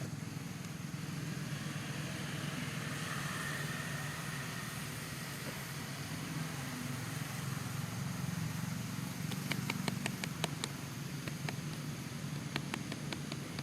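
A steady low hum, like a motor running, with a quick run of sharp clicks and ticks in the last few seconds.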